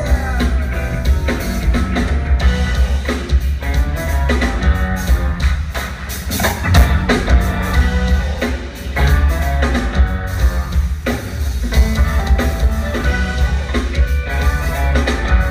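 Live rock band playing an instrumental passage with no vocals: electric guitars, keyboards and a drum kit over a heavy low end, the drums hitting steadily throughout.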